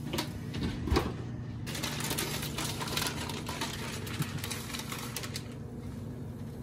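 An oven door is shut with a single sharp knock about a second in. Then a plastic bag of shredded mozzarella crinkles and rustles for several seconds as it is handled and opened.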